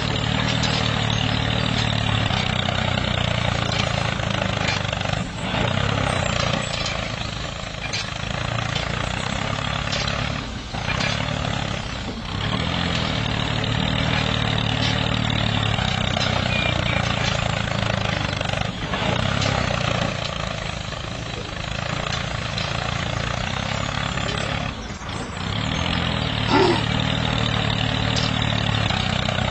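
Homemade mini tractor's motor running steadily as the tractor pulls a cultivator through sand, dipping briefly in level several times.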